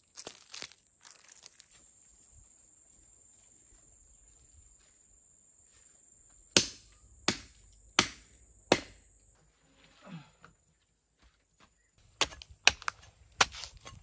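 Chopping blows into a tree trunk, wood being hacked with a bladed hand tool. Four sharp chops come about two-thirds of a second apart around the middle, then a quicker run of chops near the end.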